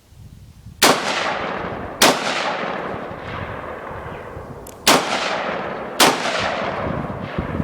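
AR-15 pistol firing four shots in two pairs, each shot trailed by a long echo off the range.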